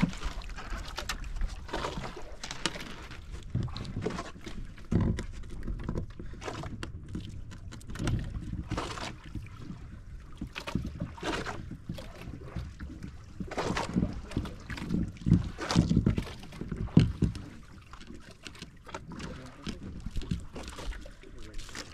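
Water lapping and splashing around a small fishing boat, with irregular knocks and handling noises on the boat.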